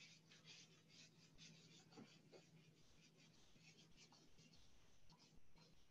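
Whiteboard eraser wiping across a whiteboard in a rapid series of short, faint strokes.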